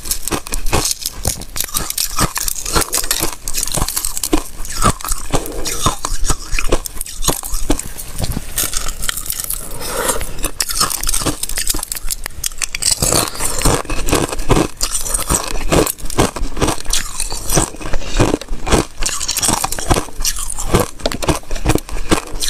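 Thin sheet ice being crunched and chewed, with pieces snapped off by hand: a dense, continuous run of sharp crackles close to the microphone.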